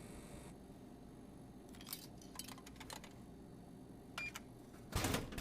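A few small scattered clicks and a brief beep-like tick, then a short louder knock or rustle near the end, over a faint low hum.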